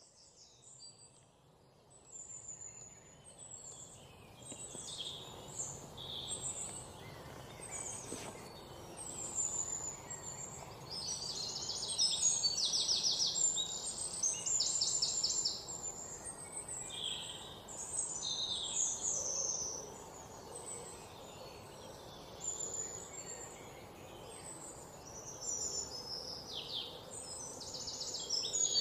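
Birds chirping and singing outdoors: many short high calls and some fast trills, over a faint low rumble of background noise.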